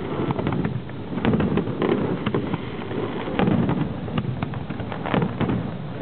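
Fireworks display: a quick, irregular string of sharp bangs and crackles from bursting shells, with low booms rolling between them.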